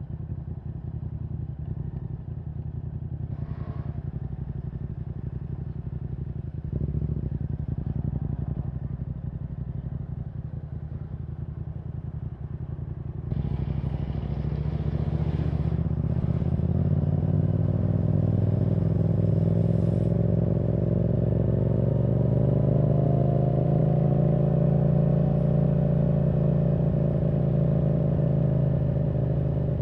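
Yamaha R7's 689 cc parallel-twin engine through a Yoshimura R77 exhaust with the dB killer removed, running at low revs at first. About 13 seconds in it gets louder, and the revs climb steadily under acceleration, levelling off and easing slightly near the end.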